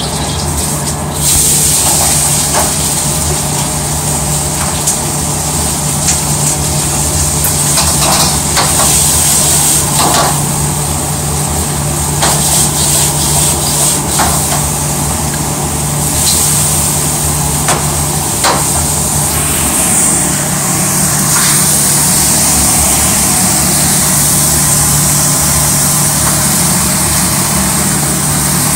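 Steady loud mechanical noise with a low hum, broken by scattered sharp knocks and clatters, which come mostly in the first two-thirds.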